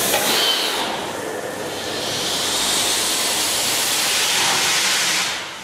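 Rushing hiss from the Pinchbeck beam pumping engine, building over a couple of seconds, holding, then dropping away sharply near the end.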